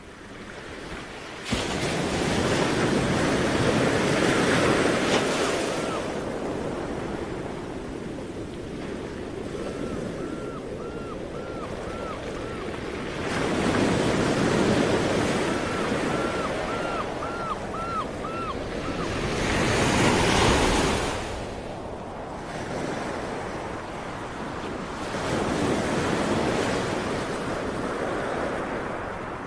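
Ocean surf: a rushing wash of waves that swells and fades four times, with two faint runs of quick chirping tones in the middle.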